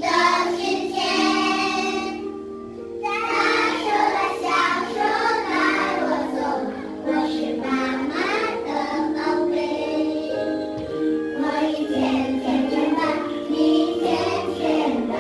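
A children's song: a group of children singing together over an instrumental backing, with a short break in the singing about two and a half seconds in.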